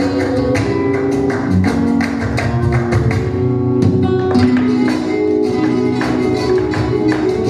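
Flamenco music in the cantiñas style, led by acoustic guitar, with sharp rhythmic strikes throughout.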